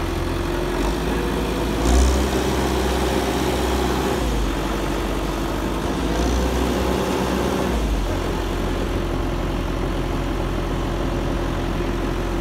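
Diesel engine of an Ajax Fiori self-loading concrete mixer running steadily. About two seconds in there is a brief loud knock, and the engine runs heavier and deeper until about eight seconds in, then settles back.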